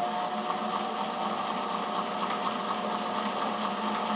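Treadmill DC motor driving a benchtop horizontal mill through belts and pulleys, running steadily with a whine while its speed control is turned up.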